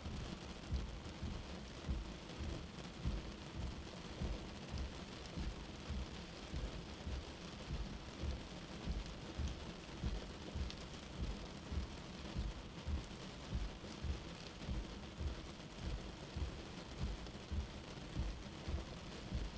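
Steady rain, an even hiss of falling drops, with low dull thuds repeating about every two-thirds of a second.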